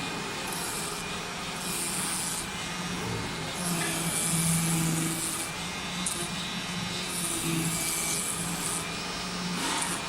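Oscillating-knife CNC cutting machine running: a steady mechanical hiss, with a low buzzing hum that starts and stops in short spells as the machine's motors work.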